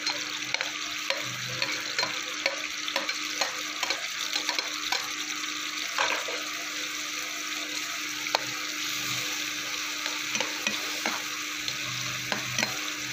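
Chopped tomatoes sizzling in hot oil in a frying pan, with the frequent scrapes and taps of a metal spatula stirring them against the pan.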